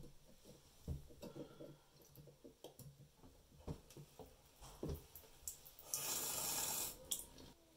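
Faint clicks and taps of a folding hex key turning the handle set screw on a chrome single-handle bathroom faucet, with water trickling from the spout. About six seconds in, a hiss lasts about a second.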